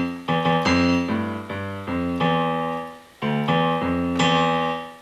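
Digital piano sound played on an M-Audio Keystudio 49 USB keyboard: about ten simple chords struck one after another, each fading before the next, with a short gap about three seconds in.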